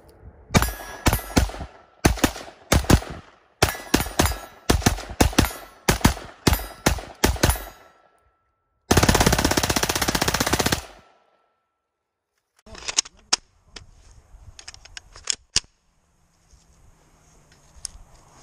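FN P90 in 5.7x28mm firing full auto: a string of short bursts for about seven seconds, then one long burst of about two seconds. After a pause, a handful of quieter single sharp cracks and clicks.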